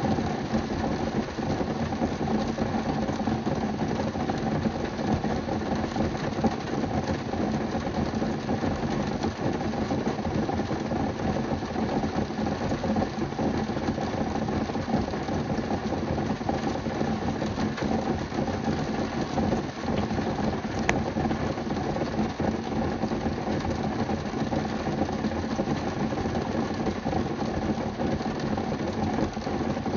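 Rain drumming steadily and densely on a car's roof and windshield, heard from inside the car, with one faint tick about two-thirds of the way through.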